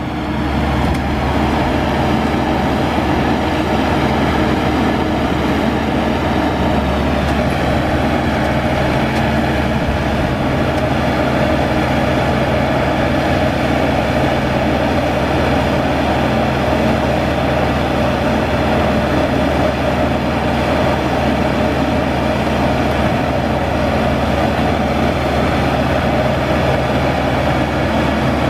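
Diesel engine of a Maxxi HD85 Turbo combine harvester running steadily, with an even low hum.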